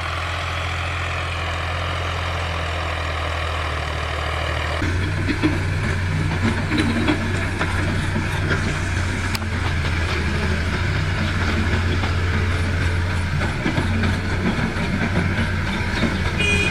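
A tractor's diesel engine running steadily. About five seconds in, a different diesel engine takes over: a Caterpillar tracked excavator's, running with scattered clanks and knocks from the digging.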